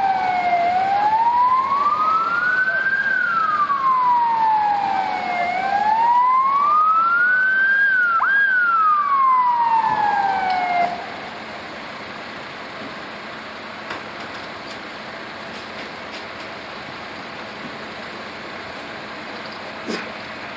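Emergency vehicle siren wailing, its pitch slowly rising and falling twice, then cutting off suddenly about eleven seconds in, leaving a steady low background noise.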